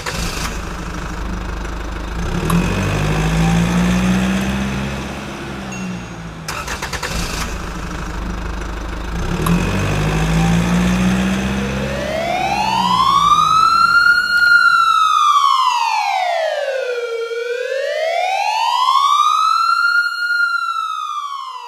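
A car engine running and revving up twice, then, just past halfway, a police siren wailing in, slowly rising and falling about every six seconds as the engine sound fades out.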